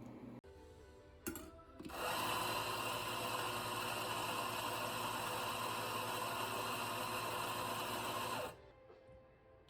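A cafe coffee machine's motor starts about two seconds in, just after a click, runs steadily for about six seconds and cuts off suddenly.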